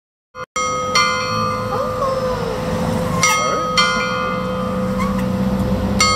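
Church bells ringing in the church tower, several strikes that each ring on and overlap, the first about a second in and others near the middle and near the end.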